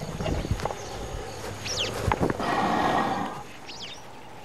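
Young bull African elephants sparring: several sharp knocks in the first couple of seconds, typical of tusks clashing. A harsh animal call follows about two and a half seconds in, and a few high bird chirps are heard.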